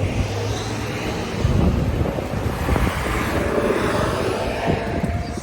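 Traffic passing on a highway: a steady rush of tyre and engine noise that swells and fades.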